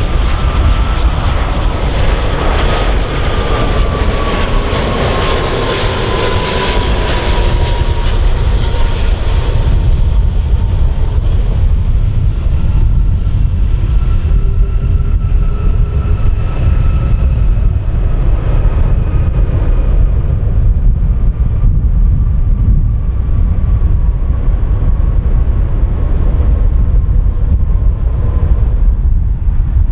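Airbus A330 jet engines on landing: a loud rush with a whine that falls in pitch as the airliner passes close by, over the first ten seconds or so. It then settles into a quieter, steady whine as the aircraft rolls out on the runway after touchdown, over a constant low rumble.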